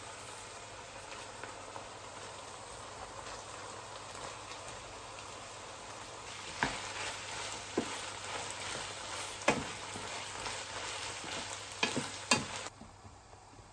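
Food sizzling in a frying pan, with a utensil stirring and knocking against the pan several times in the second half. The sizzle drops away suddenly near the end.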